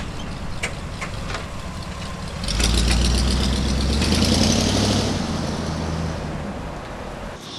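Lifted square-body Chevrolet Blazer's engine running at idle, with a few light clicks, then revving up loud about two and a half seconds in and fading away near the end as the truck moves off.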